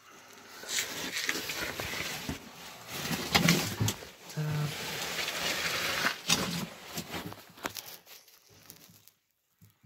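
Rustling and scraping of a caver's oversuit, hands and phone against muddy rock while he moves in a tight dig shaft, with scattered knocks; it dies down near the end.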